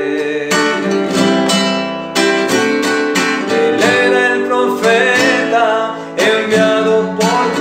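Nylon-string classical guitar strummed in a steady rhythm while a man sings a Spanish-language hymn.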